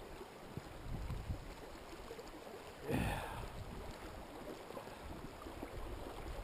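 Shallow river current flowing and gurgling over cobbles around a wading angler, with a low rumble underneath and a brief louder rush about three seconds in.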